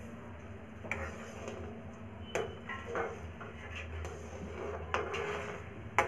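Spatula stirring and scraping in a kadai as semolina is stirred into simmering water, with several sharp knocks of the spatula against the pan.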